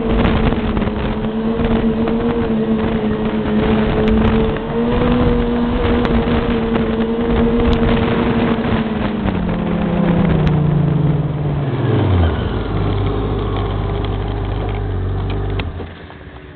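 Yamaha snowmobile running at a steady trail speed, then slowing: the engine note falls over a few seconds to a low steady idle, which cuts out near the end.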